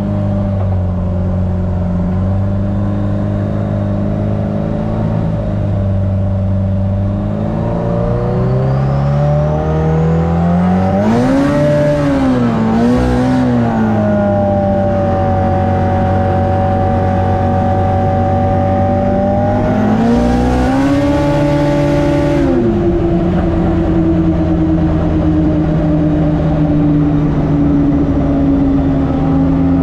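Turbocharged Polaris RZR Pro R engine running as the machine is driven. Revs climb and fall about eleven seconds in and again about twenty seconds in, each time with an added hiss, then settle into a steady tone.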